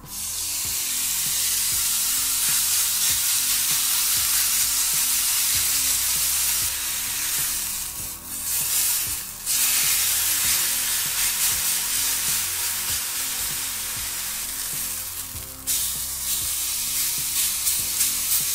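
Pork neck steak sizzling loudly on a hot ridged cast-iron grill pan, the sizzle starting suddenly as the meat is laid down and searing. It dips briefly a few times along the way.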